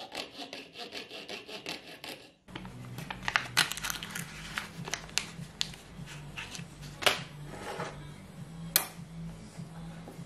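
Jeweler's saw cutting a small, thin piece of wood in quick, even strokes, stopping abruptly about two and a half seconds in. After that, background music plays with scattered sharp clicks and rustles of small parts and a plastic sleeve being handled.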